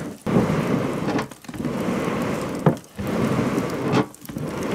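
Homemade charcoal burning hot in a forge while a large hand-worked bellows drives air through it, the rush of air and fire coming in regular surges a little more than a second apart, one per stroke. A single sharp pop from the fire about halfway through.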